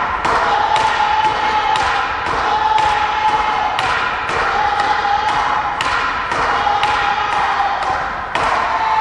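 Jigen-ryū tategi uchi: a wooden practice sword hammered against an upright wooden striking post in rapid blows, about two a second. Over the blows runs a high, shouted kiai, held about a second at a time.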